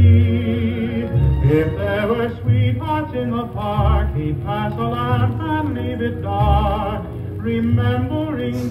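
A song playing from a vinyl record on a turntable with a built-in speaker: a singer holding notes with a strong, wavering vibrato over a steady bass accompaniment.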